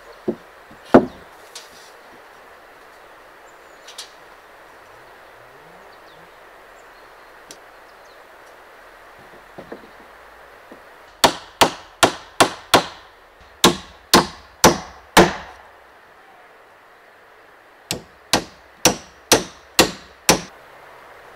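Hammer blows on a wooden cabin frame: a run of about nine quick strikes, a short pause, then six more near the end, each with a brief ring. A few wooden knocks in the first second or so as a board is set down.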